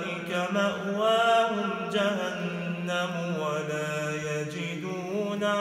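Solo male voice reciting the Quran in Arabic in the melodic tajwid style: long, drawn-out notes that glide up and down in ornamented phrases, with only brief breaks between them.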